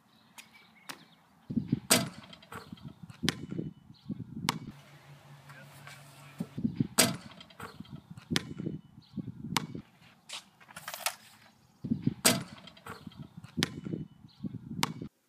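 A basketball bouncing on hard pavement, a series of sharp thuds at irregular intervals, about a dozen in all.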